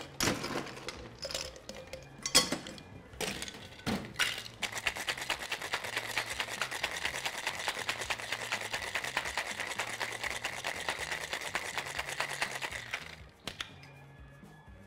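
Ice clinking into a cocktail shaker with a few separate knocks, then the shaker shaken hard for about eight seconds, ice rattling rapidly and evenly inside the metal tin, stopping suddenly near the end.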